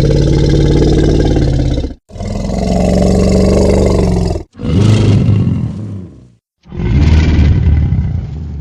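Deep, loud monster roars built from layered dinosaur and animal sound effects. A roar already under way ends about two seconds in, and three more follow, each about two seconds long with short gaps between them. The last one fades near the end.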